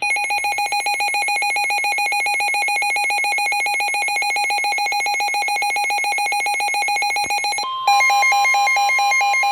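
Emergency alert tones for a severe thunderstorm warning: a rapid, high electronic trill that rings like a telephone. About three-quarters of the way in, a steady long tone joins, the weather-radio warning alarm tone, and the trill switches to a different, louder pattern.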